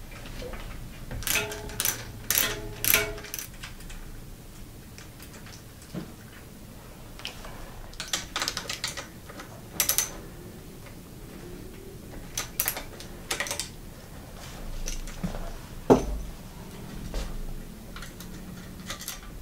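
Scattered light clicks and small metallic clinks of loose hardware being handled: the 10 mm nuts, washers and spacers of worn bicycle V-brake pads being taken off the brake arms. The clinks come in short clusters with pauses between them.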